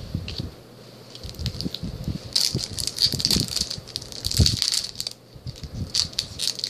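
Foil trading-card booster pack being handled and opened: irregular crinkling and crackling of the wrapper with light clicks of cards, densest in the middle of the stretch.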